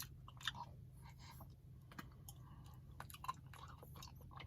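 Faint chewing and small wet mouth clicks from a person eating a Dairy Queen Blizzard with candy pieces.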